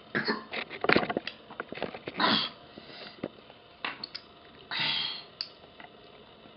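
A child sniffing and huffing breath, with small mouth clicks, while enduring an extreme-sour hard candy.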